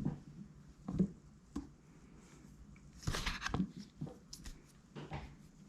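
Quiet handling noises of a baitcasting reel in the hands: a few small clicks, a short rustle about three seconds in, then more light clicks.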